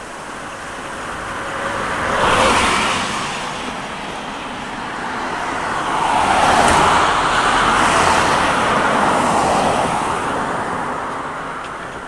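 Cars passing on a road: one swells and fades about two seconds in, then a longer, louder pass from about six to ten seconds in.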